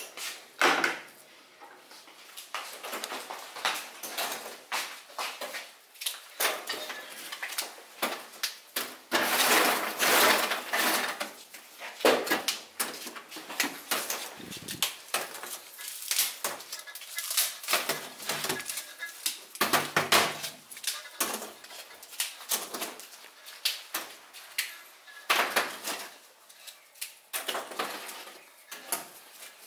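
Irregular clicks, taps and clatter of hand candy-making: strands of pulled white candy handled and snipped with scissors over a steel tray.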